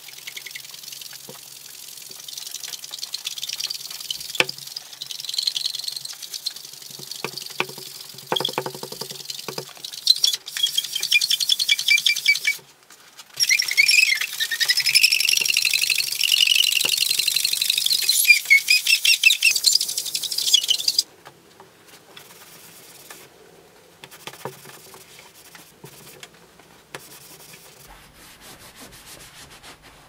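Magic eraser sponge scrubbing a wet black plastic coffee-machine panel to rub off a sticker mark, with a rasping sound and high, wavering squeaks that are loudest in the middle. About two-thirds of the way through it gives way to quieter rubbing.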